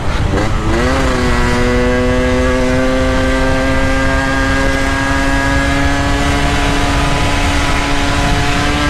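Two-stroke motorcycle engine running at steady revs. Its pitch dips and climbs back in the first second, then holds nearly constant, rising slightly.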